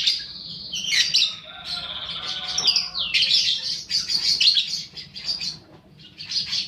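Young lovebird calling in rapid, high-pitched chirps and chatter, with a buzzy trill in the middle that ends in a falling sweep.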